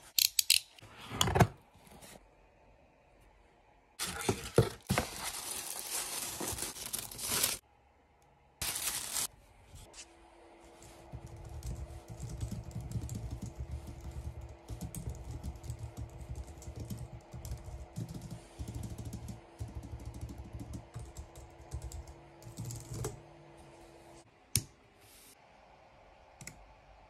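Typing on a Logitech MX Keys Mini low-profile scissor-switch keyboard: a dense patter of keystrokes for about fourteen seconds. Before it come a utility knife slicing the box seal and several seconds of packaging noise, and after it one sharp click.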